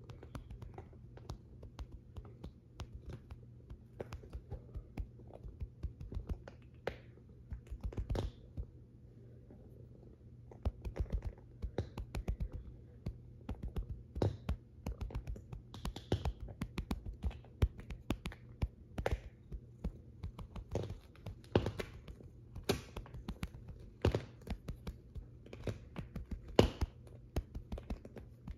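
A hand stroking a long-haired cat's fur right beside the microphone: irregular soft taps, clicks and rustles, with louder knocks now and then, over a low steady hum.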